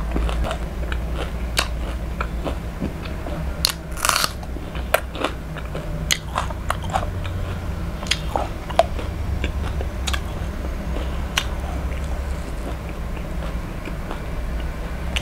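Close-miked chewing and biting of crispy deep-fried rohu fish, with scattered crunches and mouth clicks and a louder crunch about four seconds in. About eight seconds in comes a bite of raw red onion. A low steady hum runs underneath.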